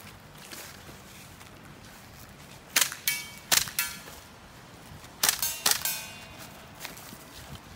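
GHK M4 gas-blowback airsoft rifle, converted to a GBL short bolt, firing sharp shots in quick pairs and short strings from about three seconds in. Some shots are followed by a brief metallic ring.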